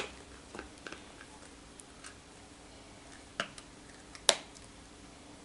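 Sharp plastic clicks and snaps as a phone is pressed into a thick impact-resistant phone case, a few scattered clicks with the loudest snap about four seconds in.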